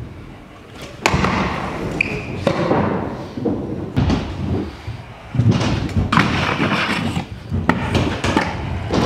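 Freestyle scooter riding: polyurethane wheels rolling on the skatepark floor and ramps, with several sharp thuds of the deck and wheels landing and slapping down.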